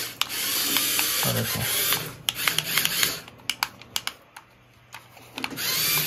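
Small electric gear motor and low-speed, high-torque gearbox of a homemade remote-control model tractor whining and grinding as it drives across a tiled floor. It stops for a couple of seconds around the middle, with only scattered clicks, then whines again near the end.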